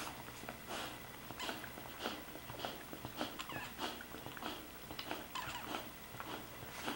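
Soft coated wheaten terrier mother licking her newborn puppy clean, a run of quick wet licks, while the puppy gives thin, high squeaks.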